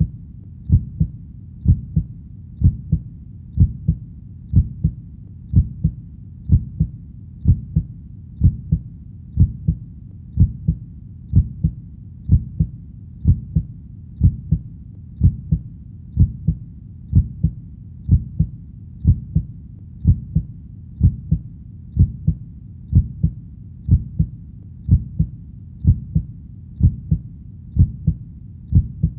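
Heartbeat: a steady low double beat (lub-dub) repeating about once a second, over a steady low background between beats.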